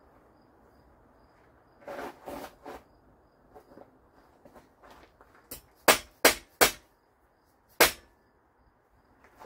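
Hammer striking metal parts of a Model A front axle assembly: a light tap, then three quick sharp blows, then one more blow about a second later. Some scraping and handling of parts comes before the blows.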